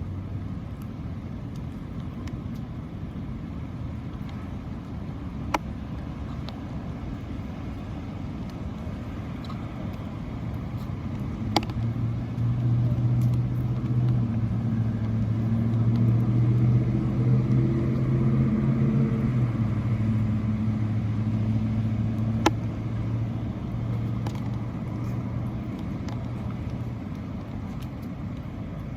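A vehicle engine's low hum passing by, swelling from about a third of the way in, dropping slightly in pitch past its loudest point and fading out near the end. Three sharp clicks stand out along the way.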